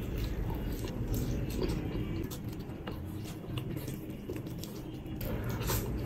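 A person chewing food with the mouth, giving many short wet clicks. Near the end, sauce-covered fried chicken is handled with the fingers, and the clicks get a little louder.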